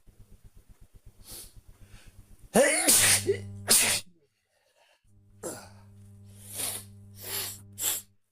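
A person sneezing: one loud, natural sneeze about three seconds in, after a couple of faint catching breaths. After a short break comes a low steady hum with several shorter, weaker bursts of noise.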